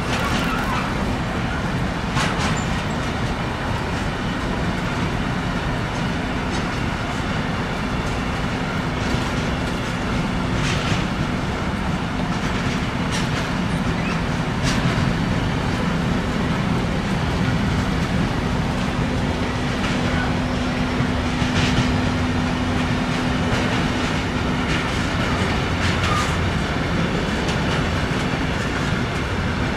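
Wagons of a long intermodal freight train, loaded with swap bodies and tank containers, rolling past: a steady rumble of steel wheels on rail with a held low tone, broken by occasional sharp clicks.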